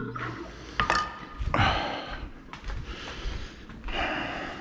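A sharp kitchen clink with a short ringing tone about a second in, and two long breathy exhales, the sighs of a man tired out after hand-whisking mayonnaise.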